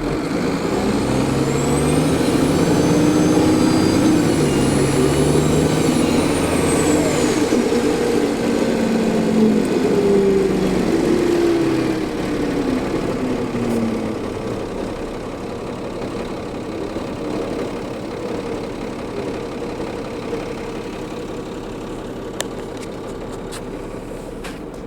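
Bus diesel engine (Cummins ISL in a New Flyer D40LF) accelerating, its note stepping as the ZF automatic gearbox shifts up, with a high turbocharger whine that climbs, holds and then falls away. After about fourteen seconds the engine eases off and runs more quietly.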